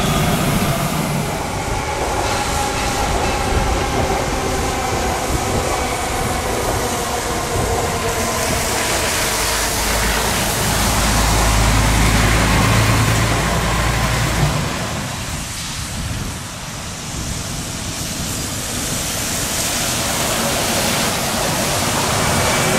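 An electric drive whine with several tones falling together in pitch over the first two seconds. Then an articulated city bus drives slowly round a curve on a wet road: its engine rumbles low, loudest around the middle, with tyre hiss on the wet surface.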